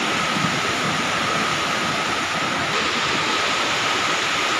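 Swollen, muddy mountain river in flood: a steady, loud rush of churning floodwater.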